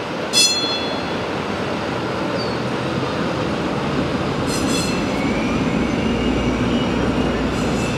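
Vintage PCC streetcar rolling past on its rails with a steady running rumble. Brief high-pitched wheel squeals come about half a second in, again near five seconds and at the end.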